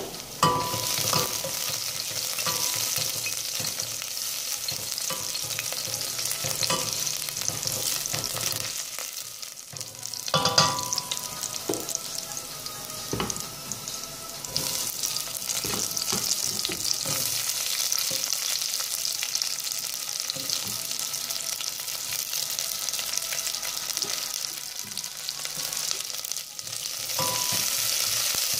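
Minced garlic sizzling in hot oil in a stainless steel pot, stirred with a spatula that knocks and scrapes against the pot now and then, with one louder knock about a third of the way in. The sizzle grows louder near the end as chopped onion goes in.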